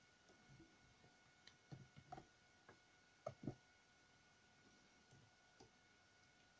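Faint, scattered clicks of a disc-detainer pick turning the discs inside a Tokoz Pluto padlock held under tension, as the discs are worked towards their gates. The two loudest clicks come close together about three and a half seconds in.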